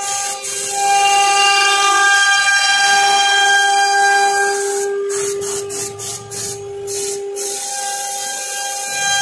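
Compressed-air blow gun hissing steadily over the steady whine of a CNC router spindle. The hiss stops and starts several times between about five and seven and a half seconds in.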